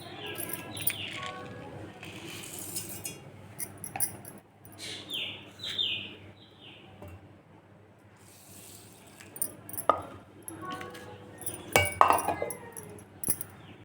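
Metal kitchen utensils clinking and knocking with scattered sharp strikes, the loudest about ten and twelve seconds in. Several short high chirps that fall in pitch come in near the start and again around the middle.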